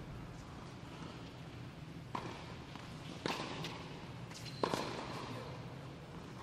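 Tennis racket strikes on the ball in a doubles rally in an indoor tennis hall: a serve about two seconds in, then two more hits a little over a second apart, the last the loudest, each ringing briefly in the hall.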